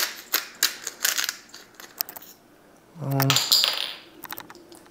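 Kitchen handling sounds from seasoning raw chicken: a quick run of sharp clicks and rattles from seasoning containers and utensils, then a short pause. About three seconds in comes a brief hum of a voice, followed by a short hiss and a few light clicks.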